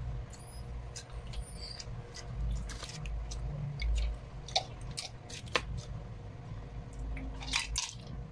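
Quiet eating and drinking sounds: scattered small clicks and smacks of mouths and a spoon in a soup bowl, with a few soft low thuds.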